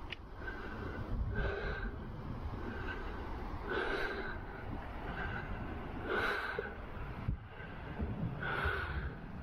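A person breathing heavily and evenly, with a loud breath about every two and a half seconds, over the low rumble of wind on the microphone.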